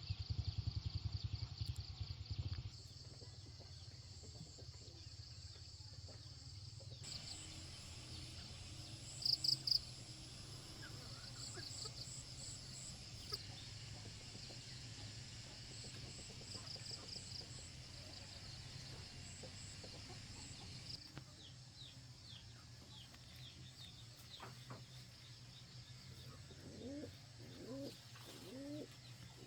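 Farmyard ambience: chickens clucking and small birds chirping, with a few short clucks near the end. The background changes abruptly several times, as separate outdoor recordings are cut together.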